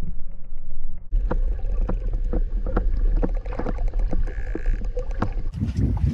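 Underwater sound among short-finned pilot whales: a steady low rumble of moving water with irregular sharp clicks, a few a second, and a louder low rush just before the end.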